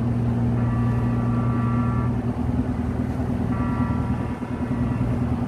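Cargo ship's machinery running with a steady low drone, while a high, steady whine of several tones comes and goes twice, each time for about a second and a half.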